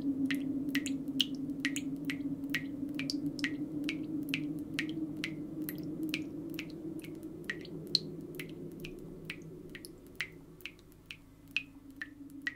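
Barber's scissors snipping in a quick, even rhythm, about three snips a second, over a low steady hum.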